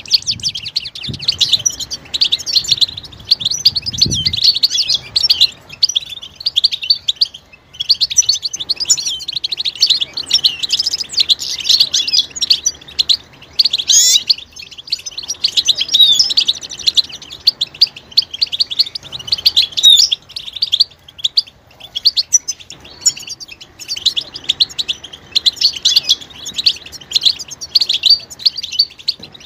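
Several European goldfinches twittering: a dense, unbroken stream of fast chirps and trills, with short pauses about a quarter and half way through. These are the group twittering calls of mating and breeding readiness.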